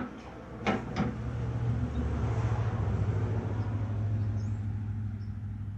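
Kawasaki Ninja 500 parallel-twin being spun over on its electric starter without firing, a steady cranking drone that begins after a couple of clicks about a second in. The engine cranks but won't start because no fuel is reaching it from the tank.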